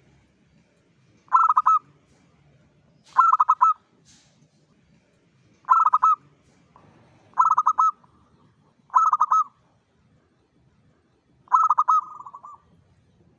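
Local-type zebra dove (perkutut) cooing: six short phrases of quick stuttering coo notes, repeated every couple of seconds. The last phrase trails off a little longer.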